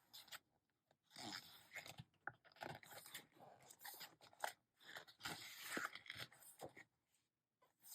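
Faint rustling and crinkling of paper as the pages of an album's photo book are handled and turned, in short irregular bursts.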